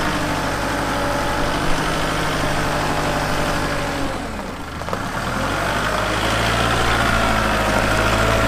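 Kubota L4060 compact tractor's four-cylinder diesel engine running while the hydrostatic tractor is driven in its lowest range. The sound dips briefly about four seconds in, then the engine note rises and holds steady.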